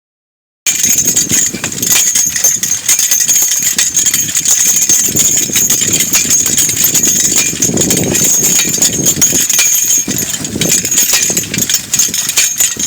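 Bells jingling continuously on a draft-horse team's harness as the horses work, with a shifting low rumble underneath.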